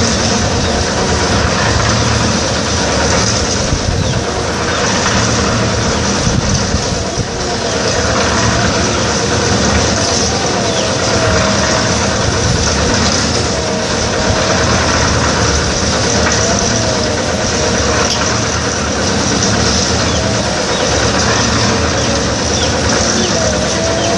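Drum concrete mixer's engine running steadily while it mixes concrete, with a faint wavering whine coming and going.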